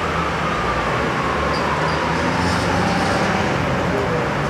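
Road traffic and idling vehicle engines at a busy street scene, a steady rumble that swells about halfway through, with a faint tone sliding slowly down in pitch.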